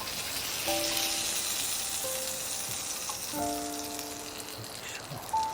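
Scallops cooking in butter and soy sauce over a charcoal shichirin, sizzling steadily and easing off toward the end.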